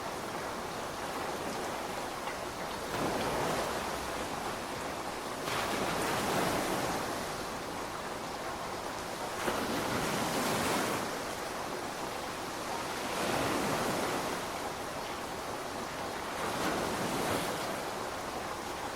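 Ocean waves breaking on a beach and washing up the sand, each one swelling up and falling back every three to four seconds over a steady hiss.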